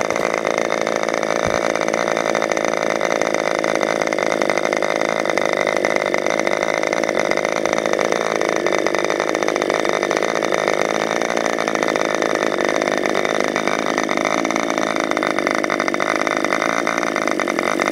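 C.F. Lee-modified K&B .61 two-stroke glow model airplane engine running steadily at an even pitch on a test stand, turning a wooden propeller, during a test run after an overhaul.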